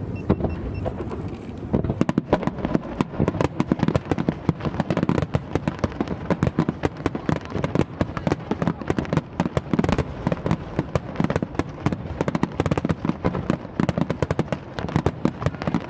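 Fireworks display: a dense, rapid barrage of firework bursts and crackles, many bangs a second, breaking out about two seconds in after a steadier rumble.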